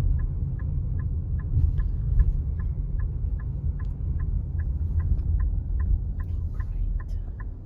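Car turn signal clicking steadily, about two and a half clicks a second, over a loud low rumble.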